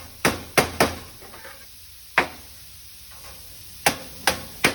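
Sharp sheet-metal knocks, about seven at irregular spacing: 2-inch hollow turning vanes being tapped home into a 2-inch turning-vane rail with a wooden mallet.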